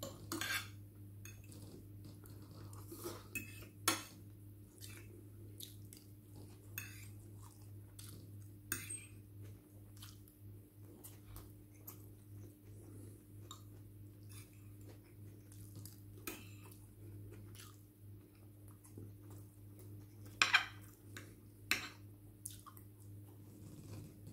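Cutlery clinking against a dish during eating, in scattered sharp clicks, the loudest about four seconds in and twice around twenty seconds in, over a faint steady hum.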